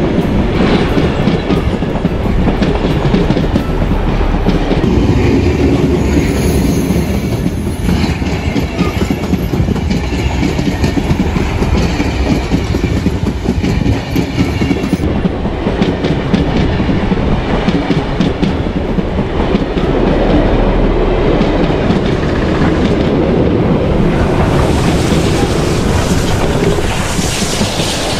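Heritage train hauled by a diesel locomotive passing close by, with a steady run of wheels clicking over the rail joints.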